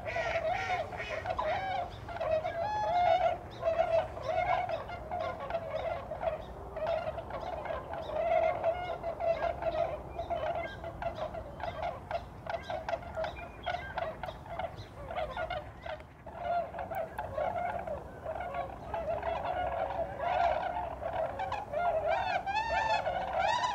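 A flock of swans calling, many overlapping high calls in a steady chorus.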